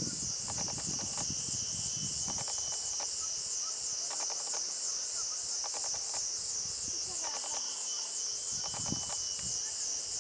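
Insect chorus: a steady, high-pitched pulsing trill, about three to four pulses a second, with short bursts of rapid clicking calls every second or two.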